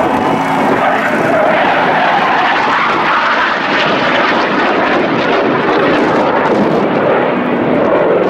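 Jet aircraft flying past, a loud steady rushing noise that drops in pitch toward the end.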